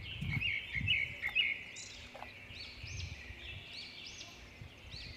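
Small birds chirping and singing: many quick arching notes repeated over and over, with a louder trill in the first second or so, over low thuds of footsteps on loose stones.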